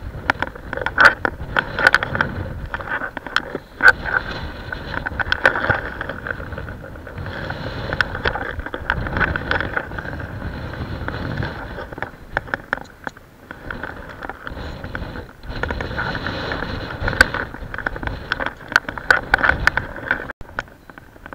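Wind buffeting the microphone as an uneven rumble that rises and falls, with many scattered clicks and knocks from handling or fishing gear.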